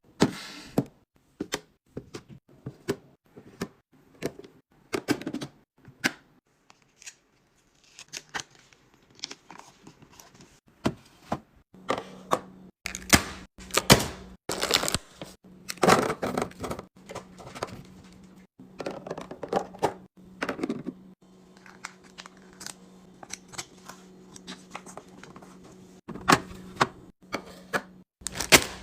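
Many clicks, knocks and rustles of plastic containers, lids and packaging being handled and set down while a refrigerator is cleaned and restocked. A steady low hum comes in about twelve seconds in.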